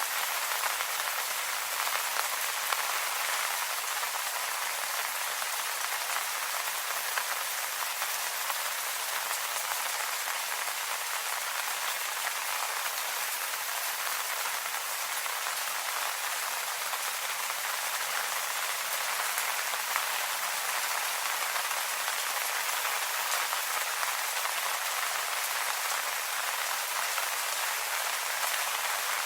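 Steady rain falling on leaves: an even hiss of many small drops with no let-up.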